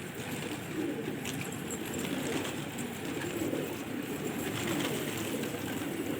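Many domestic pigeons cooing together, low overlapping coos running on without a break.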